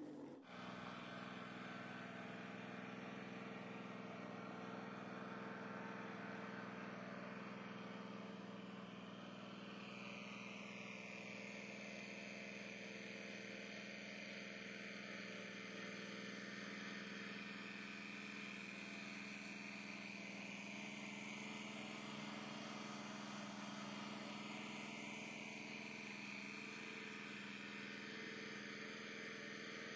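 A machine engine running steadily, an even hum that holds without rising or falling.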